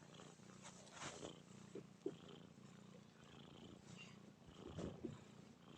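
Cat snoring in its sleep: a faint, steady, purr-like rumble, with a louder snoring breath about a second in and again near the end.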